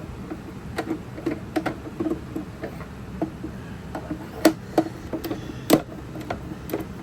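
Irregular light clicks and taps of plastic speaker-enclosure parts being handled and knocked together, with a couple of sharper knocks a little past the middle.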